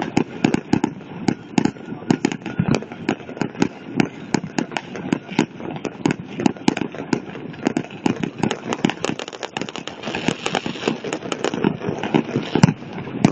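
Fireworks going off: a dense, unbroken run of sharp bangs and pops, several a second, with a crackling hiss about ten seconds in.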